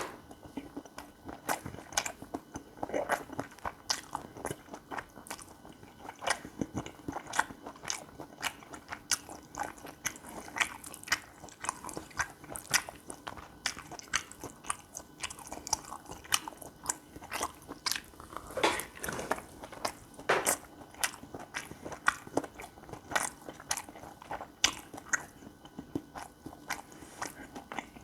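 Close-miked chewing and biting of gopchang fried rice, a steady irregular stream of small crunchy, wet mouth clicks.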